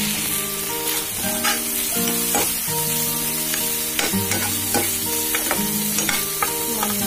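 Chopped vegetables sizzling in hot oil in a wok, stirred with a metal spatula that scrapes and knocks against the pan again and again. Background music with sustained notes plays underneath.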